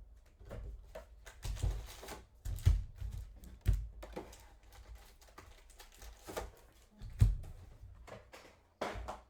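Football trading cards and pack wrappers being handled on a table: irregular light clicks and crinkles, with a few soft knocks, the loudest a little after seven seconds in.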